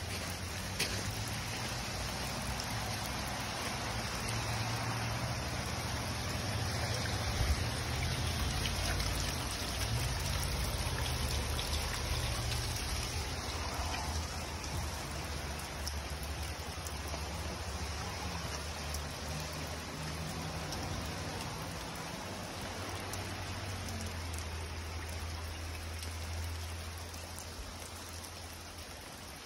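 Steady rain falling on wet gravel and dirt, as an even hiss, with a low rumble underneath.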